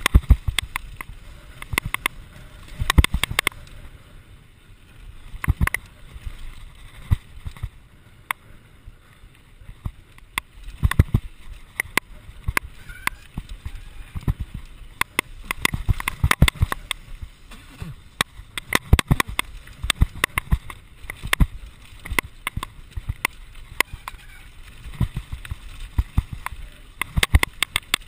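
Santa Cruz Nomad mk2 full-suspension mountain bike clattering down a rough dirt and rock trail. Frequent irregular sharp knocks and rattles from the bike over bumps, over a steady rush of wind and tyre noise.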